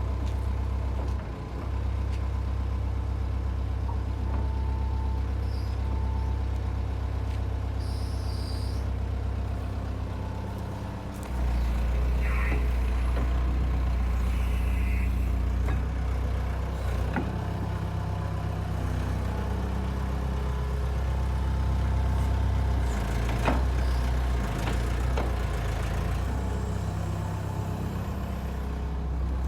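Diesel engine of a Hitachi EX100.5 excavator running steadily with a low rumble. It gets louder about 11 seconds in, as under load or higher revs, with occasional clicks and knocks.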